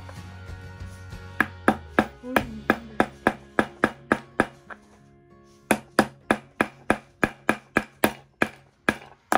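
A child's small hammer striking a small craft house piece in quick, even blows, about three to four a second, in two runs with a short pause about halfway. Quiet background music underneath.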